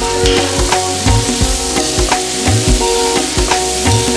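Shredded chicken, shallots and garlic sizzling in hot oil in a wok, stirred with a spatula near the end. Background music with a steady beat plays throughout.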